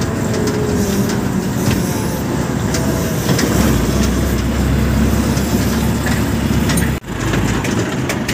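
Hydra mobile crane driving along a road, heard from its open cab: steady diesel engine running with road and wind noise. The sound breaks off briefly about seven seconds in, then carries on.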